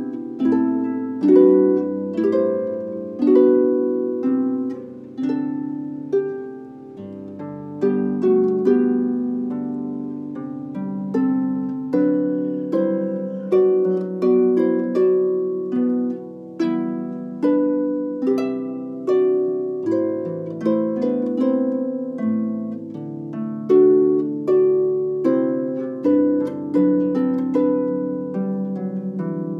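Solo concert pedal harp played by hand: plucked notes and chords ring on and blend into one another, with a fresh, stronger pluck about every second.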